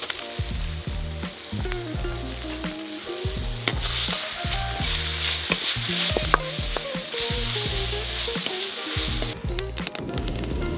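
Food frying and sizzling in a hot pan, the sizzle growing louder about four seconds in, with a few sharp clicks of a utensil against the pan. Soft background music plays underneath.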